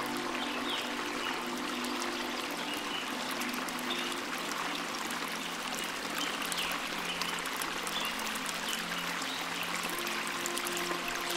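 Small waterfall splashing steadily into a pool, an even rush of falling water. Soft held low music notes lie underneath, fading in the middle and returning near the end.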